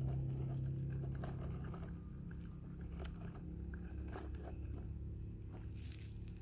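Faint crunching of grit and scattered small clicks from a plastic toy tractor and log trailer rolling over sandy dirt, over a low steady hum.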